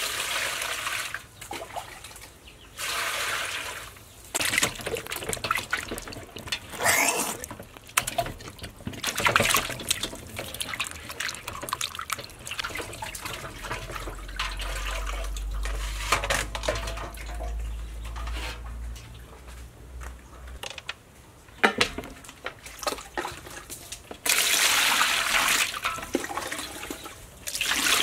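Water poured from a plastic scoop over a whole raw chicken into a metal basin, with splashing and sloshing as the bird is rubbed and rinsed by hand. The pours come in several short bursts, and one long, loud pour near the end.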